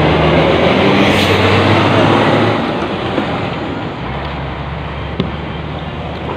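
A motor vehicle running with a low engine hum and road noise, loudest for the first two and a half seconds and then easing. Two light knocks come about three and five seconds in.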